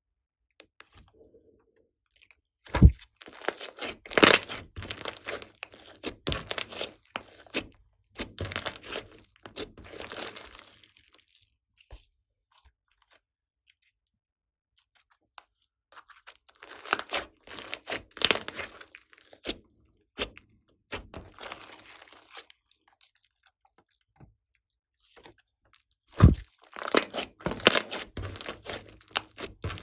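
Slime being squeezed and kneaded by hand, giving dense crackles and pops in three spells with quiet pauses between.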